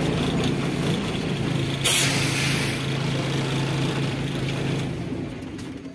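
Vehicle engine running, heard from inside the cab, with a short burst of hissing about two seconds in; the engine sound fades away near the end.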